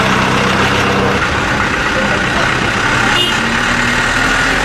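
Diesel truck engines running as trucks move off, a steady low engine rumble.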